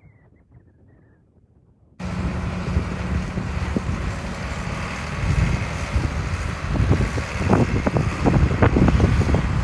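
John Deere 4640 tractor's six-cylinder diesel running as the tractor drives away, very faint for the first two seconds and then plainly heard. From about five seconds in, wind buffets the microphone in irregular gusts that are louder than the engine.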